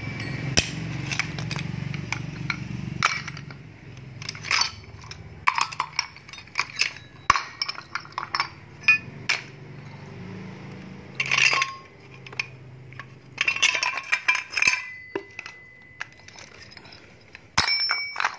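Metal grass-trimmer spare parts (clutch drums, clutch housings and gear heads) clinking and clattering as they are handled and set down on a concrete floor, in irregular knocks with several quick bursts of clatter. About three-quarters of the way through, one knock leaves a part ringing briefly.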